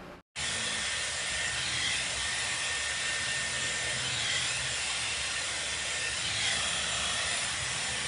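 Hot-air hair styler blowing, a steady airy hiss with a faint high whine from its motor. It starts suddenly about a third of a second in and holds even.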